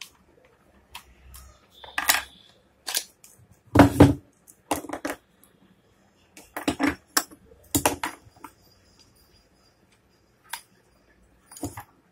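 Angle grinder parts being handled and worked with a screwdriver on a workbench: an irregular series of sharp clicks, knocks and clinks of metal and plastic, the loudest about four seconds in.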